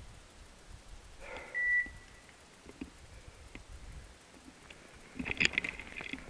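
A single short electronic beep, about a third of a second long, a little over a second in. Near the end comes a burst of rustling and crackling in the undergrowth.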